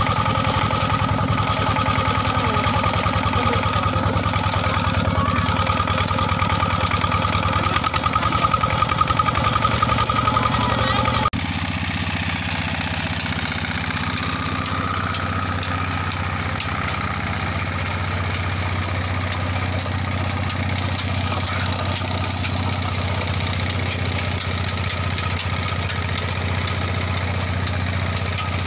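Small stationary engine running steadily, belt-driving a sugarcane crusher as cane is fed through its rollers. The sound changes abruptly about eleven seconds in, becoming slightly quieter and duller.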